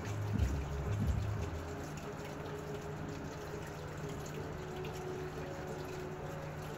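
Background music with held notes over a steady hiss-like background noise, with a few low bumps in the first second or so.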